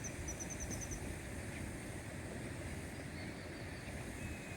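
Rural outdoor ambience dominated by a steady low rumble of wind on the phone's microphone, with a rapid run of short high bird chirps in the first second and faint high calls near the end.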